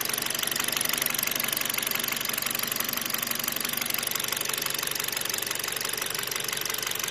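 Fourth-generation Kia Rio's petrol engine running at a steady speed with a rapid, regular knock from inside the engine, the knock the owner is documenting at 87,000 km.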